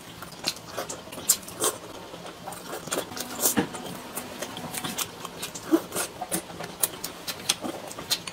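Close-up eating sounds: wet chewing, lip smacks and slurping as boiled dumplings dipped in chili sauce are eaten, many small clicks scattered irregularly.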